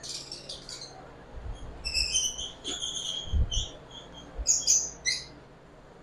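Lovebirds in their breeding cages chirping: short, sharp, high calls in clusters, several birds at once, with a few soft low thumps underneath.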